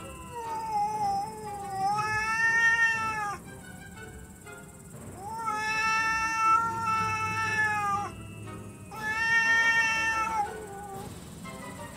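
Cats caterwauling: long, drawn-out yowls, one after another with short gaps, each held for a second or more and wavering slightly in pitch. This is the threatening yowl of cats squaring off over territory, with an aggressive stray at the window.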